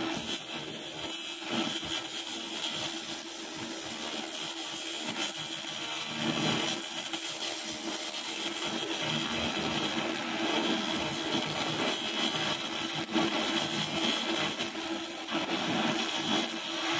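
Handheld 200 W pulsed fiber laser cleaning head ablating paint off a wooden board: a steady, dense crackling hiss over a constant low hum.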